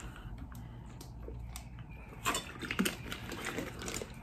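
Faint scattered clicks and light taps over a low background hum. A few louder clicks come a little over two seconds in and again near the end.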